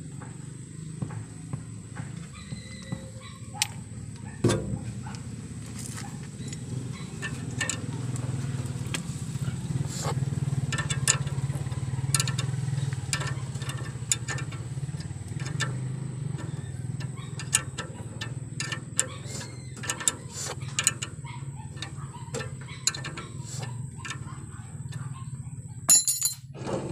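Scattered metal clicks and clinks of a wrench working a nut on a truck's tie rod end, over a steady low hum.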